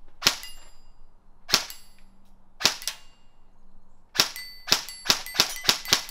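Battery-powered Bravo Company (BCM) airsoft rifle firing single shots at a steel plate, each a sharp snap followed by a ringing ping as the pellet hits the steel. Nine shots: three about a second apart, then a quicker string of six from about four seconds in.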